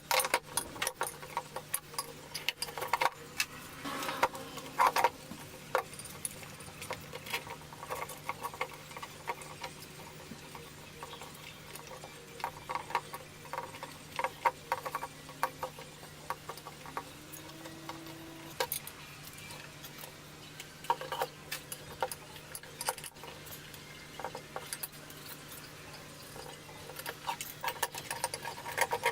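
Irregular clinks, taps and knocks of metal tools and parts being handled at a workbench, over a steady low hum.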